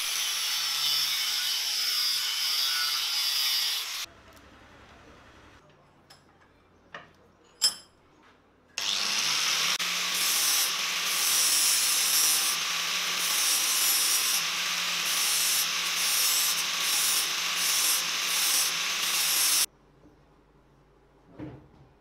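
Angle grinder's abrasive disc grinding down the threaded end of a steel bolt, a harsh hissing grind that runs about four seconds, stops, and after a short gap with a few light clicks and one sharp knock resumes for about eleven seconds with a choppy, flickering top end as the disc bites on and off.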